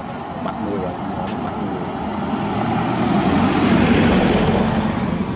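Engine noise of a passing motor vehicle, swelling to a peak about four seconds in and then fading.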